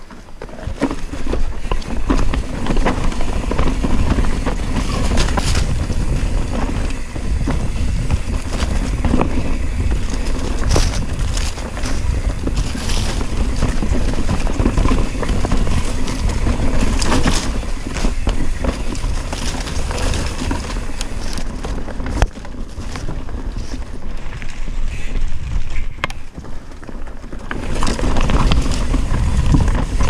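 Wind rumbling on a helmet-camera microphone during a fast mountain bike descent, mixed with the bike rattling and its tyres clattering over loose rocks and roots in many short knocks. The rumble eases briefly twice in the second half.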